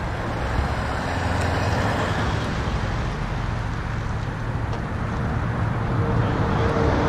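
Steady motor vehicle and traffic rumble with a low hum and hiss. A faint steady tone comes in near the end.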